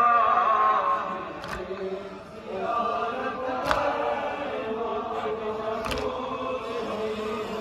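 A man's voice singing a Kashmiri noha lament into a microphone, followed after about two seconds by a crowd of men chanting the refrain together. Sharp slaps land about every two seconds in time with the chant, the mourners' unison chest-beating (matam).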